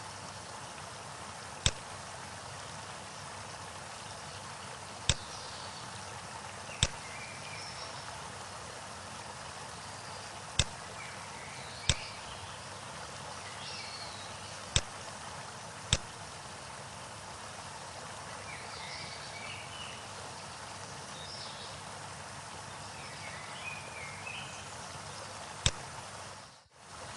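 Steady rushing of a waterfall with birds chirping now and then, and a sharp click every few seconds.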